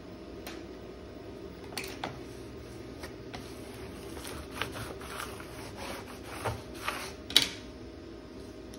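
Scattered soft rustles, crinkles and taps of a vinyl stencil and its paper backing being pressed and smoothed by hand and with a plastic scraper, the sharpest crinkle near the end. Underneath is a steady low hum.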